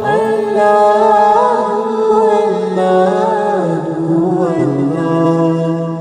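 Background music: male voices singing an Arabic nasheed a cappella, melismatic lines over a low held drone.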